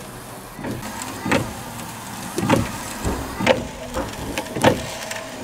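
Opel Kadett D's electric windscreen wiper motor running, the blades sweeping back and forth across the wet glass with a sharp sound at each stroke about once a second. The wiper posts have just been replaced with tighter, less worn ones.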